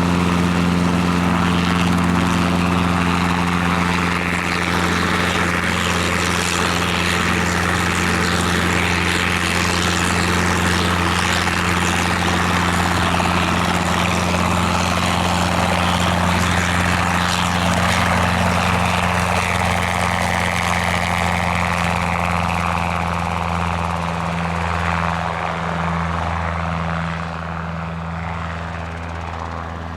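Robinson R22 helicopter running steadily: a constant low hum of engine and rotors under a broad rushing noise. Over the last few seconds it grows quieter and duller.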